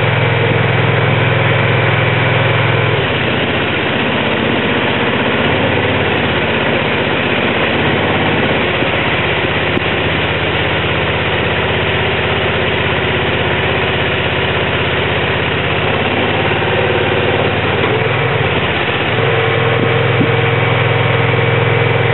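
The engine of the MARPOL VDM-G100-XL drill rig's hydraulic power unit runs steadily. About three seconds in its note drops and it runs under load while the hydraulics fold the drilling mast down onto the pickup bed, and it comes back up to its higher steady note near the end.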